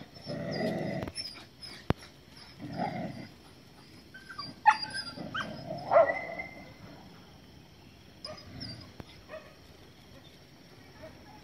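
Dogs barking and yipping in short, irregular calls, the sharpest and loudest about five and six seconds in.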